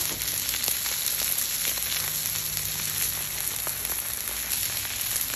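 Beef chuck and New York strip steaks frying in oil on a flat-top griddle: a steady sizzle with scattered small spattering pops.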